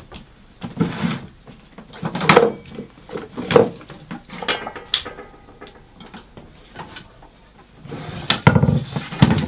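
Knocks, clunks and scrapes from a small Titan bench-top bandsaw being handled and shifted on a workbench, a handful of separate bumps with the loudest two near the end.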